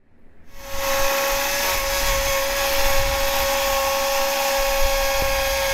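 Chainsaw running at a steady high speed, a constant whine over a rushing noise, fading in over the first second.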